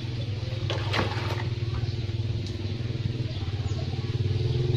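A small engine running steadily with a low, even hum that grows a little louder toward the end. There are a couple of sharp clicks about a second in.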